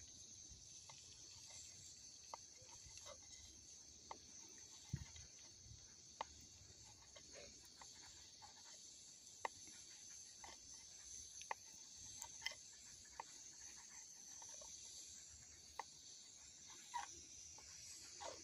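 Knife cutting rolled dough into noodle strips on a cutting board, the blade striking the board in sparse, irregular clicks about once a second, over a faint steady high hiss.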